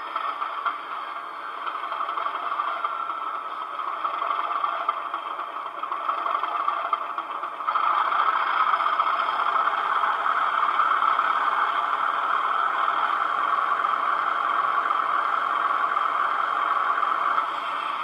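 Recorded Class 37 diesel engine sound from a model locomotive's sound decoder, played through its small onboard speaker, so it is thin with no deep bass. The English Electric engine runs steadily, grows clearly louder about eight seconds in as the power rises, and eases back just before the end.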